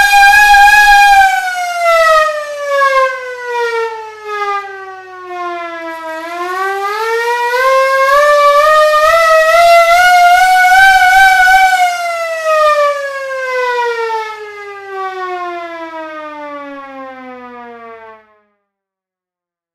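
Hand-cranked all-metal portable siren wailing with a wavering tone. Its pitch falls, climbs back up as it is cranked again, then falls away and stops a little before the end.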